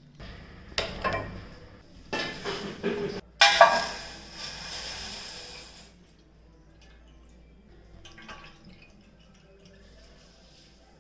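Kitchen pots and utensils knocking and clinking, then about 3.5 s in liquid poured into a pan, a rushing splash that fades out over about two seconds.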